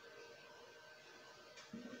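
Near silence: faint steady room hum, with one soft short knock near the end.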